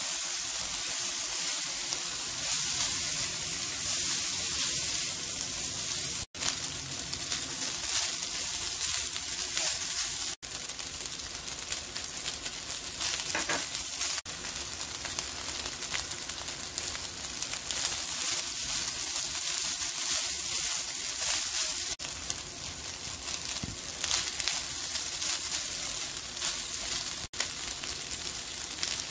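Boiled rice sizzling as it is stir-fried in a hot non-stick wok and turned with a spatula. It is a steady frying hiss that drops out for an instant a few times.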